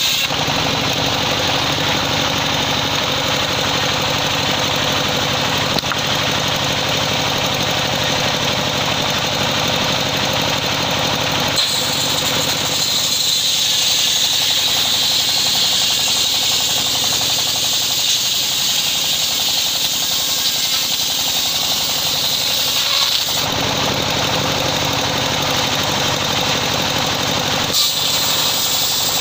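A large bench-mounted circular saw ripping a teak log lengthwise: a steady loud machine drone with the rasp of the blade cutting through the wood. The cutting noise grows harsher about twelve seconds in, eases several seconds later, and rises again near the end.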